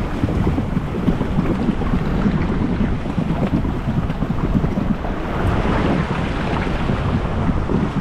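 Inflatable raft rushing down a water slide: a steady wash of sliding water with heavy wind buffeting on the microphone, the water hiss growing louder around six seconds in.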